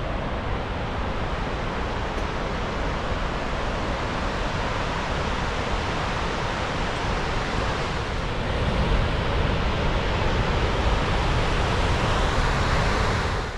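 Wapta Falls waterfall: a steady rush of falling water, growing louder about two-thirds of the way through.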